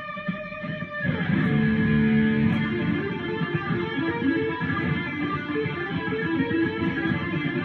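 Electric guitar playing. A held chord rings until about a second in, then gives way to a run of quick, shifting notes.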